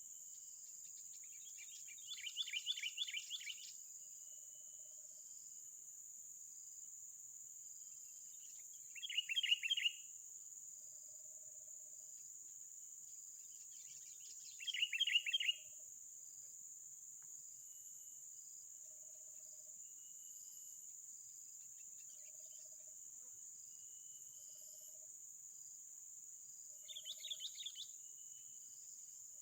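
A bird calling four times in short, fast trills of repeated notes, each about a second long, over a steady high-pitched drone of insects.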